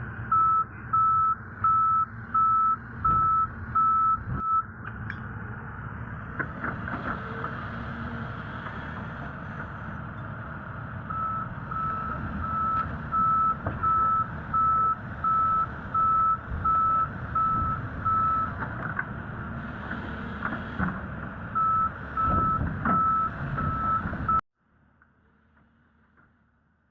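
Heavy machinery's backup/travel alarm beeping at a steady high pitch, about two beeps a second, in three runs over the rumble of a diesel engine. The sound cuts off abruptly near the end.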